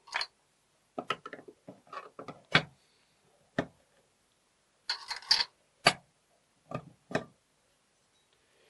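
Screwdriver and metal cover plate clicking and knocking against the case of a century-old mortise door lock as the plate is pried off: a series of sharp, separate metallic clicks, with a short cluster about five seconds in.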